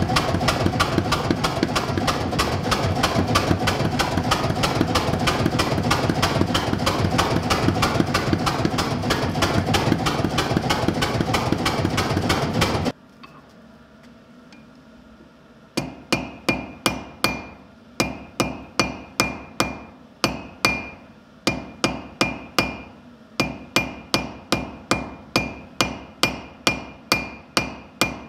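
A power hammer pounds a red-hot steel bar in rapid, steady blows, then stops abruptly about 13 seconds in. After a short lull, a hand hammer strikes the hot bar over the anvil horn at about two blows a second, with brief pauses, and each blow leaves the anvil ringing.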